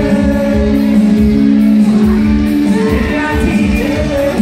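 Live dance-band music played loud in a large hall: electronic keyboard with long held notes over a steady drum beat.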